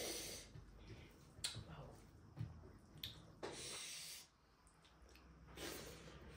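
A person eating fish curry and rice: faint mouth and food noises with several hissing breaths, the longest lasting just under a second past the middle, and a few light clicks.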